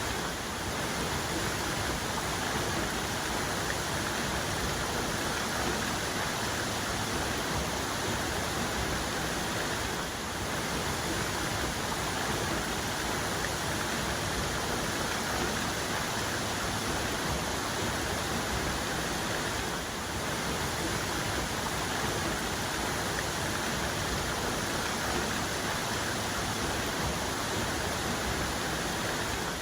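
Waterfall's main cascade: a steady, even rush of falling water.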